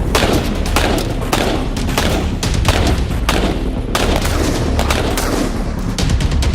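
Rapid, irregular gunfire: many sharp shots in quick succession from Sig Sauer firearms.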